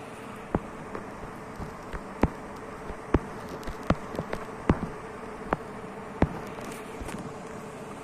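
Panasonic industrial ceiling fans running: a steady hum with a faint held buzzing tone and the rush of moving air. A dozen or so sharp clicks stand out over it at uneven intervals, mostly in the first six seconds.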